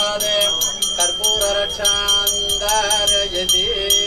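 Brass puja hand bell rung rapidly and steadily during an aarti offering, about five strokes a second with a clear high ringing tone, over a man chanting mantras.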